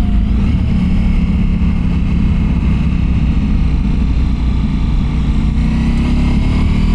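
Ducati Multistrada Pikes Peak motorcycle engine and exhaust running steadily under way, with wind rushing past. The engine pitch starts to climb near the end.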